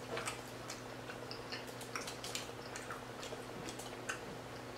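Close-miked chewing of a mouthful of calzone, with many small, soft wet mouth clicks scattered throughout.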